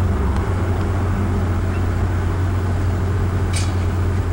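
Steady low rumble of a motor vehicle, with a short hiss about three and a half seconds in.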